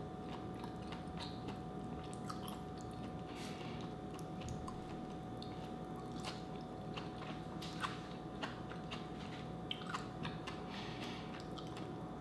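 Close-up chewing of cooked vegetables, with scattered wet mouth clicks and smacks over a faint steady hum.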